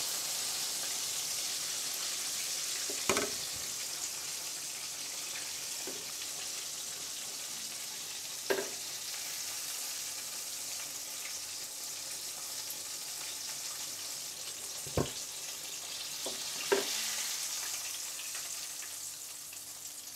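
Batter-coated chicken deep-frying in hot oil, a steady sizzle, with four sharp clicks of metal tongs knocking the pan as the pieces are lifted out.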